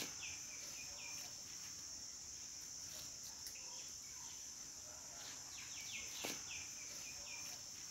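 Outdoor ambience of a steady high-pitched insect drone, with a bird calling in runs of short falling chirps near the start and again about five to six seconds in. A single faint click sounds a little after six seconds.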